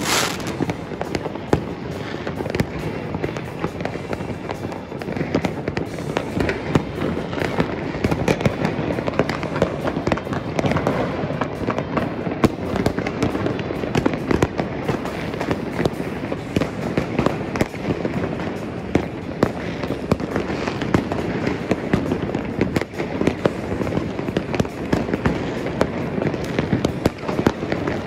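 Many fireworks and firecrackers going off at once, a continuous crackle of overlapping bangs with no pause.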